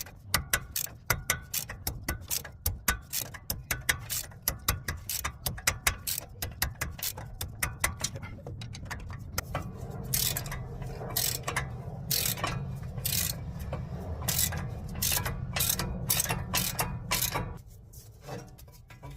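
Socket ratchet clicking in a steady run as an 18mm brake caliper bracket bolt on a 2024 Ford Ranger is undone. From about halfway through, a low hum runs under the clicks and stops shortly before the end.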